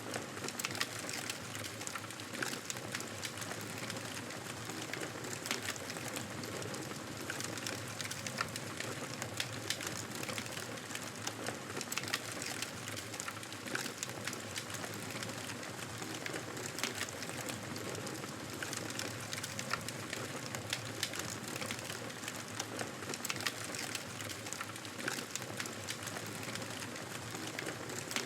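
Wood fire burning in a fireplace: a steady hiss with many small crackles and pops scattered throughout.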